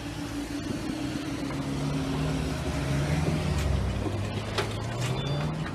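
Road vehicles moving off across a level crossing as the barriers rise, their engine notes rising and falling, with a steady hum from the barrier mechanism fading out after about two seconds.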